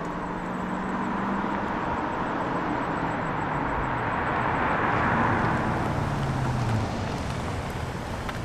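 An older car comes up the road from behind, its tyre and engine noise swelling, then slowing with a falling engine note as it pulls up alongside.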